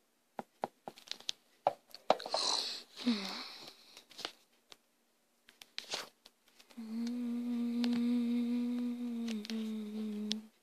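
A person humming one steady held note for about four seconds, starting a little past the middle, with a short break near the end. Before it come light clicks and taps from toys being handled, and a brief rustling noise about two seconds in.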